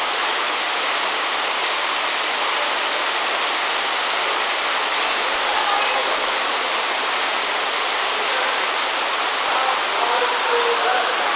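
Heavy rain pouring steadily onto a flooded street, a continuous even hiss.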